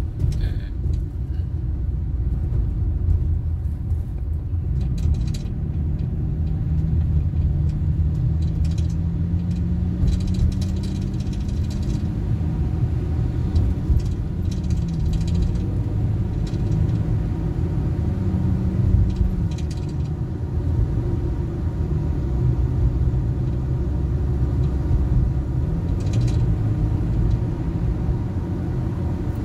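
A car's engine and tyres on the road make a steady low rumble while driving. A humming engine note rises slowly for several seconds about a sixth of the way in, then dips away.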